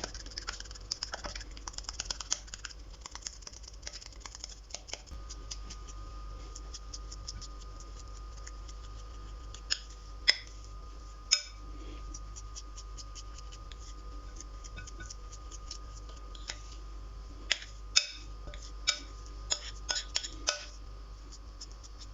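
Homemade flour-and-powder slime being squished and stretched by hand: a run of small crackling clicks for the first few seconds, then a handful of sharp pops in two clusters later on.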